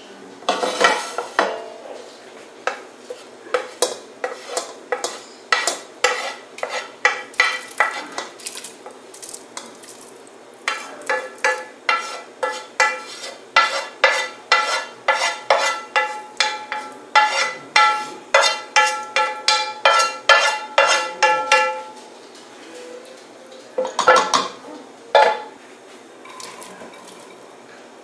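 A utensil knocking and scraping against a stainless steel pot as browned ground beef is transferred into water. It makes a long run of clinks, about two a second, each with a short metallic ring. There is a brief pause partway through and a couple of knocks near the end.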